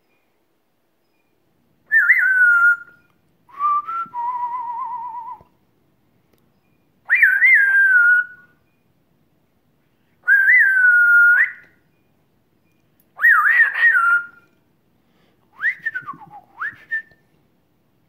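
African grey parrot whistling: six short whistled phrases a couple of seconds apart, each sliding up and down in pitch, one ending in a long wavering note.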